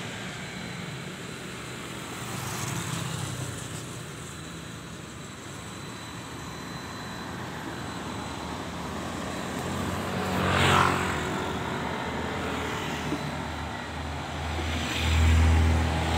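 Road traffic: cars and motorbikes driving past close by. One pass is loudest about ten seconds in, and a deeper, heavier one comes near the end.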